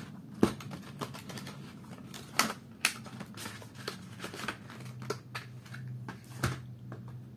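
Irregular light taps and clicks of cardboard and plastic stationery packs being handled and set down on a table, over a faint low hum.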